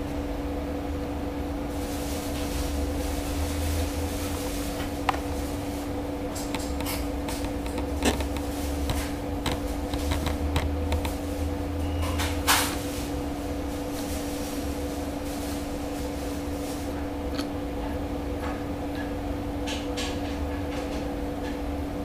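A gas meter's mechanism running fast, a steady mechanical hum with scattered light clicks and taps, a sharper click about 5, 8 and 12 seconds in.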